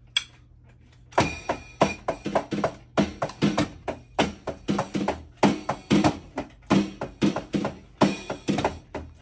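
Simmons Titan 50 electronic drum kit being played, its drum and cymbal sounds coming out of the kit's amplified output: after a single click, a rhythmic beat of sharp hits starts about a second in and keeps going.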